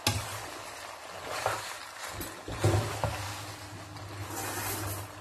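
Plastic spatula stirring and tossing sauced pasta in a non-stick wok, with irregular scrapes and soft knocks against the pan, the loudest at the start and about two and a half seconds in. A steady low hum runs underneath.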